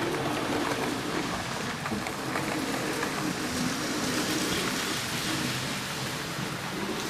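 HO scale model train running along the track: a steady, rain-like rattle of small metal wheels on the rails, with a faint motor hum.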